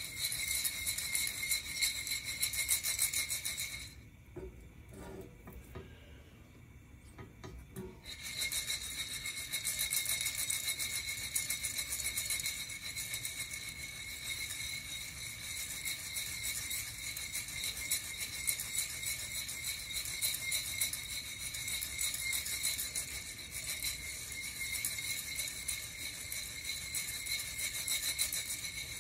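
Coffee beans rattling and sliding inside a Nuvo ceramic hand roaster as it is shaken, a continuous rasping rattle. About four seconds in it stops for about four seconds, then the shaking resumes.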